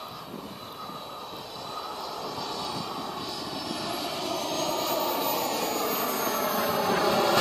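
JetCat P-180 turbine of an RC jet in flight, a steady jet rush that grows louder as the plane approaches.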